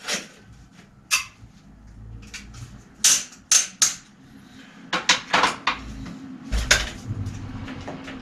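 Metal tools and bicycle parts knocking and clacking as a bike in a repair stand is worked on by hand: a string of sharp, separate knocks, several in quick succession around the middle.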